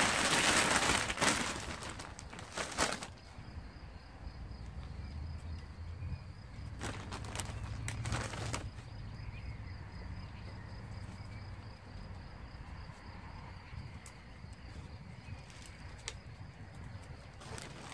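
Plastic bag of potting soil rustling and crinkling as soil is scooped out of it by gloved hands, loudest for the first three seconds, with a couple of shorter rustles about seven and eight seconds in.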